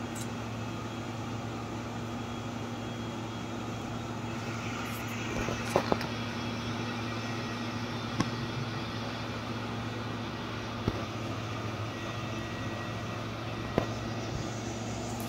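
Steady low mechanical hum over constant background noise, with a few short sharp clicks scattered through it.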